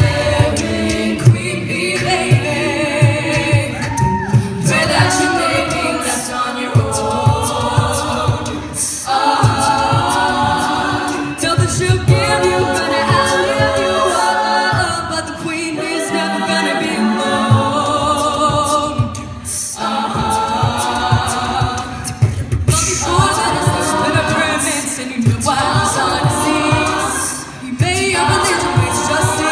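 Women's a cappella group singing through microphones, in layered harmonies over a steady beat kept by vocal percussion.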